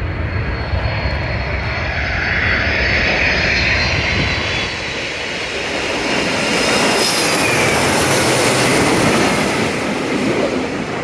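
Boeing 767's twin turbofan engines passing low overhead on final approach to land: a steady jet noise with a whine that slides down in pitch as the plane goes by, swelling to its loudest, with a high hiss, about seven to nine seconds in.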